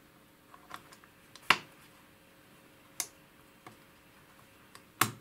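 Sharp clicks and knocks from the instrument's circuit boards being handled and fitted together: three louder knocks, about a second and a half in, about three seconds in and near the end, with lighter ticks between.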